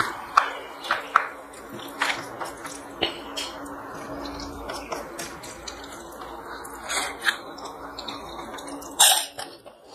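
Fingers mixing soft cooked rice with mashed boiled okra on a steel plate: wet squishing and scattered light clicks of fingers against the metal, then mouth-noisy chewing near the end.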